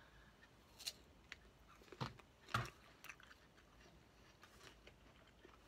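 A person biting into and chewing a piece of fruit, with a few short crunches in the first three seconds, then quieter chewing.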